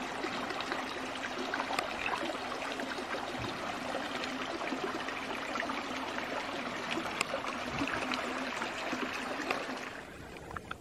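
Mountain creek running in a steady rush of water, which drops away near the end.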